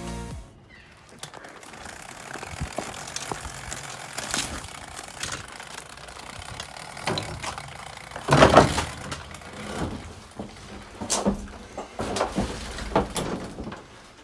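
Knocks, clunks and rattles of a pit bike and gear being handled in the back of a van, with one loud thud about eight seconds in and several sharper knocks later on.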